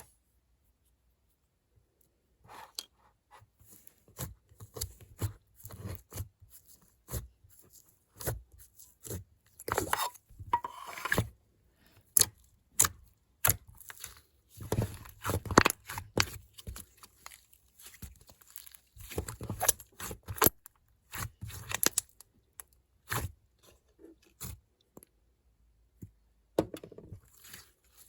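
Slime being squished and stretched by hand, making irregular crackles, pops and tearing sounds that start about two and a half seconds in and come in clusters.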